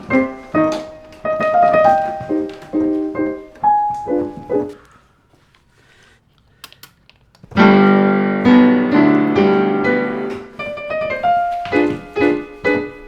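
Piano music: a run of single notes and chords that breaks off for about two seconds midway, then comes back with a loud chord and carries on.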